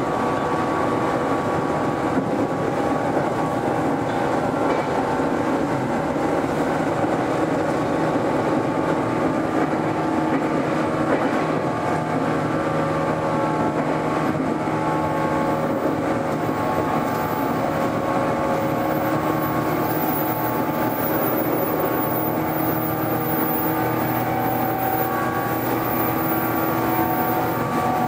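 Onboard running sound of a 413 series electric multiple unit under way: traction motors and gears humming in several steady tones over the rumble of wheels on rail, heard from inside the car.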